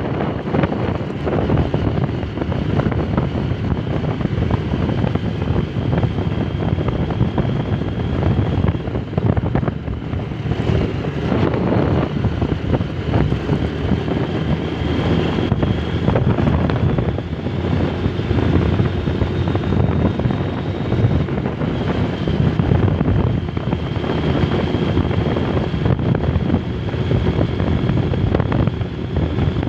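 Motorcycle riding at speed: wind buffeting the microphone over the steady run of the engine and tyres on concrete, with a faint high whine that drifts slowly in pitch.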